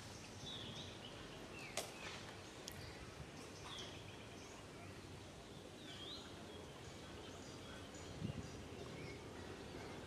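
Steady outdoor background noise with a few short, high chirps scattered through it, a couple of sharp clicks and a low thump near the end.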